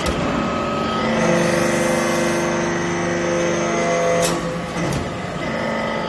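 Hydraulic metal-chip briquetting press working a stroke: a steady hum with several pitched tones from about a second in, ending in a sharp clack just after four seconds; another clack at the very start.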